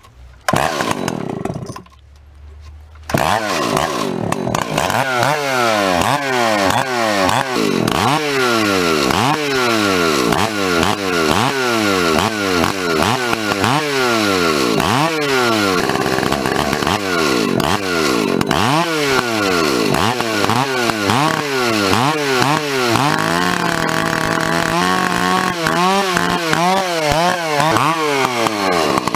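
Large two-stroke chainsaw, a '2100', running at wide-open throttle before its carburettor is tuned. From about three seconds in, its pitch rises and falls over and over, then holds steadier for a few seconds near the end.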